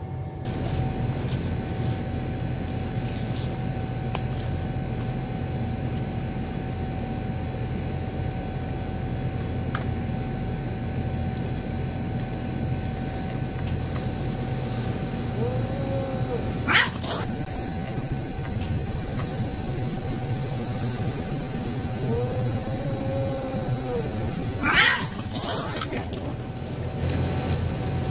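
Cat warning off another cat at food: two low drawn-out yowls, each followed by a sharp, loud hiss-spit, about 17 and 25 seconds in. A steady mechanical hum runs underneath.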